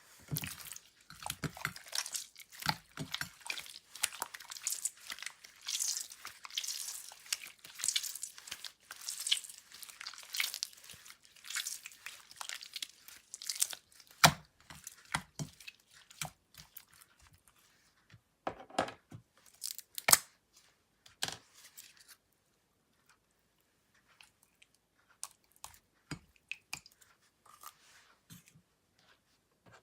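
Slime being squeezed and mixed by hand, making a dense run of wet crackling and popping. About halfway through it thins to separate pops and squelches, and near the end only faint occasional ticks remain.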